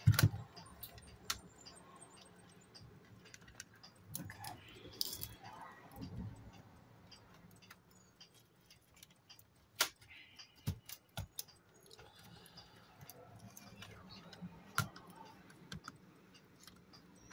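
Scattered sharp clicks and light clatter of metal and plastic camera parts being handled and pried apart by hand, as a Polaroid SX-70 camera is disassembled. The clicks come irregularly, a sharper one near the middle and a quick cluster just after.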